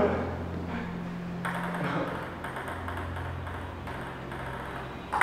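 Light pings of a table tennis ball between points, over a low steady hum.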